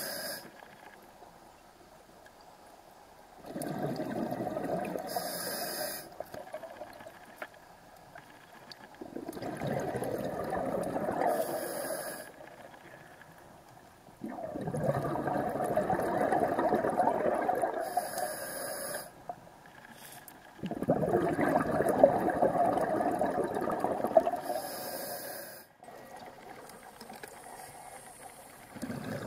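Open-circuit scuba regulator breathing underwater: four long, loud exhalations of bubbles, each a few seconds long, with quieter inhalation gaps between them.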